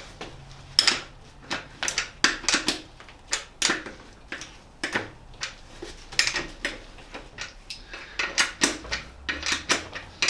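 Socket ratchet clicking in short irregular runs as the balance bike's wheel axle nuts are tightened, with small metal clicks and knocks a few times a second.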